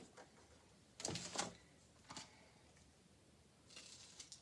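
Faint sounds of a person eating a Rice Krispie treat: a soft rustle and bump about a second in, a small click, and a crackly rustle near the end.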